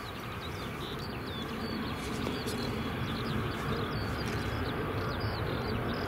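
Distant turboprop rumble of a Bombardier Dash 8 Q400 rolling out on the runway after touchdown, steady and growing slightly louder. Many small birds chirp throughout.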